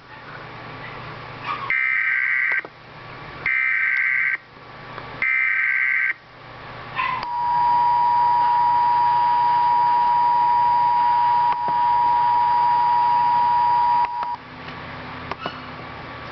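Emergency Alert System alert opening: three short bursts of SAME header data tones, a warbling two-pitch screech, followed by the two-tone EAS attention signal held steady for about seven seconds. The header bursts carry the coded alert, here a Severe Thunderstorm Warning, and the attention tone announces the voice message to come.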